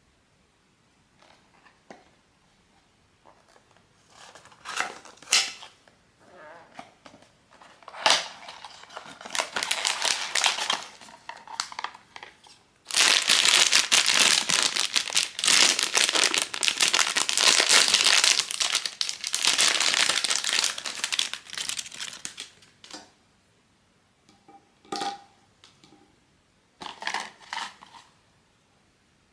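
Blind-box packaging being handled and opened by hand: scattered taps and rustles, then a long stretch of loud crinkling of the plastic wrapper through the middle, and a few short light knocks near the end.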